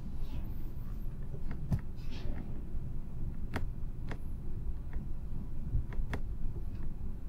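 Steady low rumble of engine-room machinery, broken by a few sharp metallic clicks and clinks of hand tools on the compressor.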